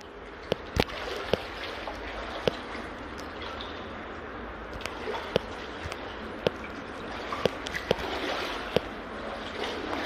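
Shallow brook water flowing along the floor of a culvert, a steady rush, with scattered sharp clicks and knocks over it.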